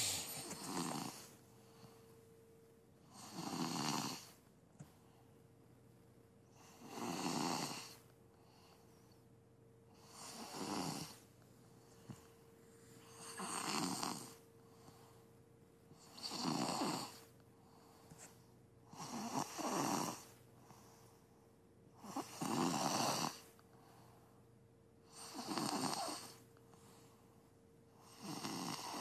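Steady snoring, about ten snores roughly three seconds apart, each a swelling rasp of breath lasting about a second.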